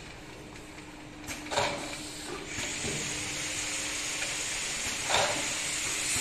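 Automatic round-bottle labeling machine with its conveyor and bottle collecting turntable running: a steady motor hum with a hiss that grows louder partway through, and two sharp knocks, one about a second and a half in and one near the end.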